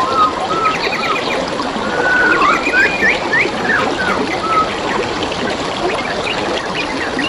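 Steadily trickling forest stream, with several wild birds chirping and whistling over it in short gliding whistles and quick chirp runs.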